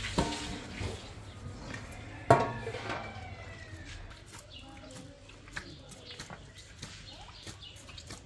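Domestic chickens clucking, with a short call at the very start and a louder, drawn-out squawk about two seconds in, then scattered softer clucks.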